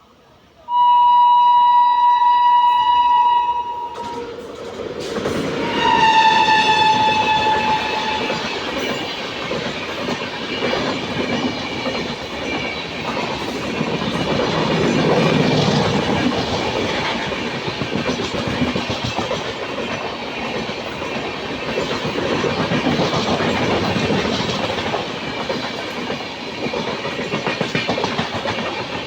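Indian Railways locomotive horn sounding two long blasts, the second sagging slightly in pitch, then the train running past with a loud, steady rumble that swells and eases.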